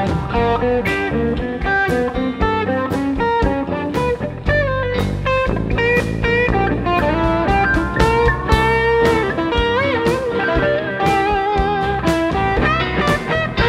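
Live blues-rock band playing an instrumental break: an electric guitar plays a lead line with bent notes over a steady drum beat and bass.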